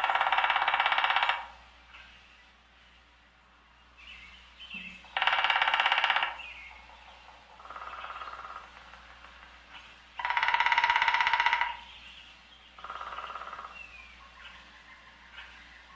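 A woodpecker drumming on wood: loud, very rapid rolls of bill strikes, each lasting about a second and a half, repeated about every five seconds, with fainter, shorter rolls in between. Faint bird chirps can be heard in the background.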